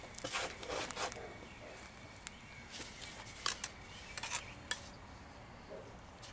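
Steel trowel scraping and clinking against stone as it fills in behind the step stones, in short scattered strokes: a quick run of scrapes in the first second, then several sharper clicks about three to five seconds in.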